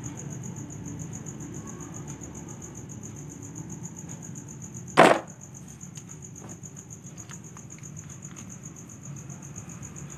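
Crickets chirring steadily in the background; about five seconds in, one sharp clack of a plastic toy animal dropped into a plastic basket, followed by a few faint taps.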